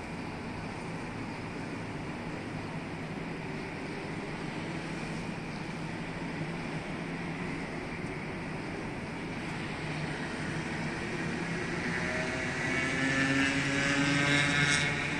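Steady noise of road traffic on a multi-lane road. From about ten seconds in, one vehicle's engine grows louder with a pitched drone. It is loudest near the end, then eases.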